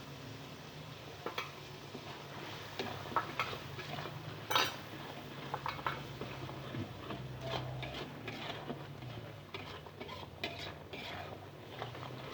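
A cooking utensil stirring and scraping in a pot, with irregular clinks and knocks, the loudest about four and a half seconds in, over a steady low hum.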